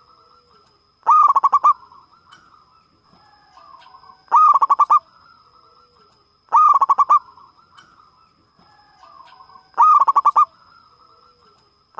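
Zebra dove (perkutut) calling loudly: four calls about three seconds apart, each a quick run of staccato cooing notes.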